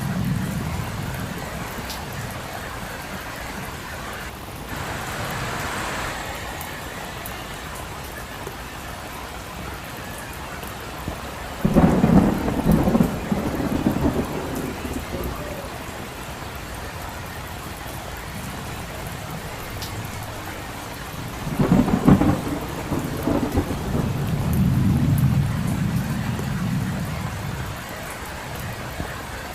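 Steady rain falling on a road, with two rolls of thunder: a sudden loud crack about twelve seconds in and another about twenty-two seconds in, each rumbling on low for a few seconds.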